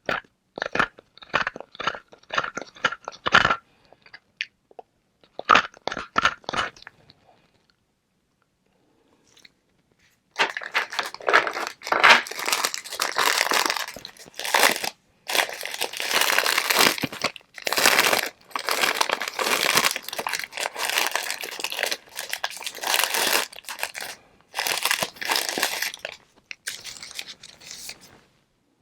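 Hard flavored ice being bitten and chewed close to the microphone. It starts with quick runs of sharp cracks, then after a short pause comes a long stretch of dense, loud crunching broken by brief gaps.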